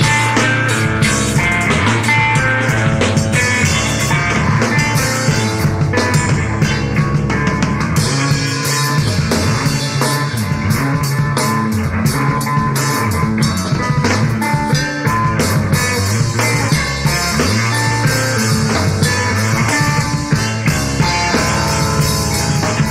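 Math rock played by a bass-and-drums duo: electric bass guitar and drum kit playing together, with busy drumming throughout.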